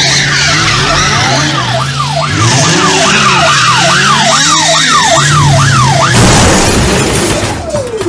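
Police car siren in a fast yelp, rising and falling about two or three times a second, over a car engine's steady drone. The yelp stops about six seconds in, and a slower siren wail starts near the end.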